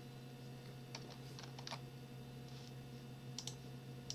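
Faint computer keyboard keystrokes, a few scattered taps with gaps between them, over a steady low hum.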